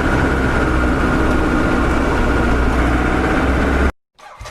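Car engine idling steadily, a low rumble with a faint steady whine, cutting off abruptly shortly before the end.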